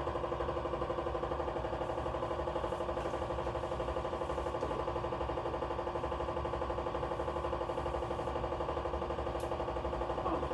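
Steady hum of a running motor with a fast, even pulsing, unchanged throughout.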